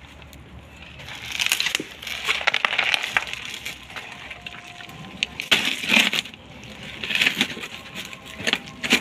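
Hands digging and scraping through loose soil in a plastic container, a crunching rustle that comes in several bursts, loudest about a second and a half in and about six seconds in.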